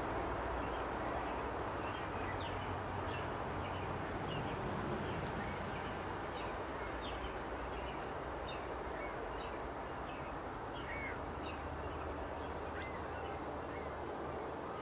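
Birds chirping again and again over a steady low rumble.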